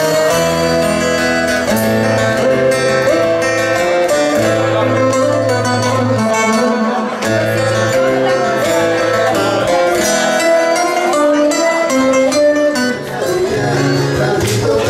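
Music: a plucked-string instrument playing a melody over a moving bass line.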